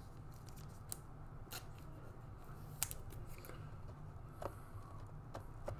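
Panini Mosaic trading cards being handled and slid through the hand: a handful of faint, scattered ticks and slides of stiff card stock over a low steady hum.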